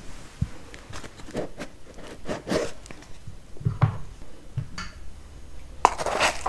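Light knocks and clicks of objects being handled and set down on a table. About six seconds in comes the crinkling of a small packet's wrapping as it is picked open, close to the microphone.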